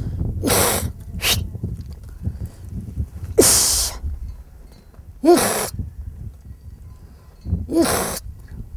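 A woman's sharp, breathy herding calls to her sheep: five short hissing calls at uneven intervals, some ending in a brief falling voice.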